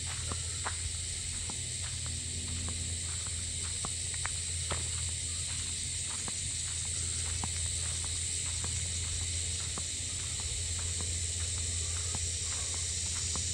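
Steady high-pitched drone of insects in the bush, with footsteps crunching irregularly on a dry dirt track.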